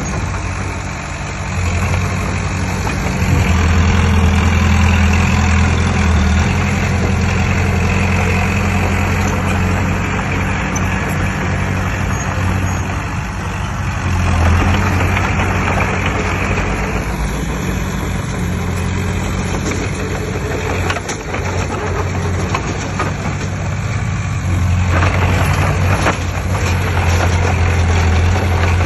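Heavy diesel engine of earthmoving machinery running steadily with a deep low note, growing louder about four seconds in and again near the end.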